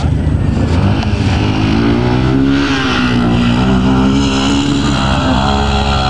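ATV engine revving under load as it climbs a steep sand hill, its pitch rising and wavering from about a second and a half in, over a steady low rumble.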